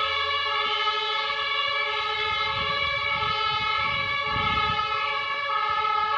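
Fire engine siren sounding steadily, a chord of unwavering tones with no break, over a low vehicle rumble that swells for a couple of seconds midway.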